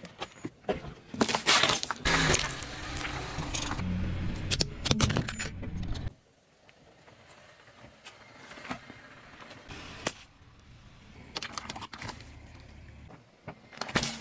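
Car tyre rolling over and crushing objects on asphalt: a long stretch of crackling and crunching over a low tyre rumble that cuts off suddenly about six seconds in, then quieter squashing with a few scattered clicks, and a sharp crunch near the end.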